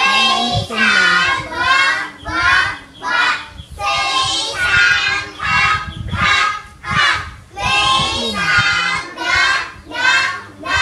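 A child's voice singing in short repeated phrases, about one phrase every second, pitch bending up and down within each.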